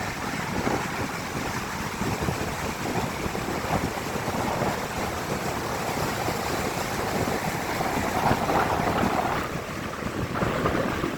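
Strong wind buffeting the microphone in gusts over the steady noise of ocean waves breaking on the beach.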